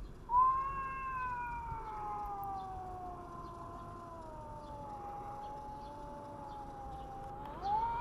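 Cat yowling in a standoff with another cat, a territorial threat call: one long, drawn-out yowl that slowly falls in pitch over about seven seconds, followed near the end by a short rising call.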